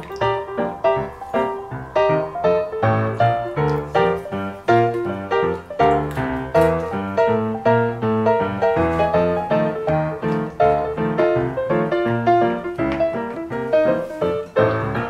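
Background piano music: a steady, lively run of notes over a bass line.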